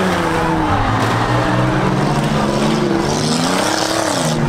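Six-cylinder demolition derby car engines revving hard under load as the cars push against each other. The engine pitch falls, then climbs and drops again near the end.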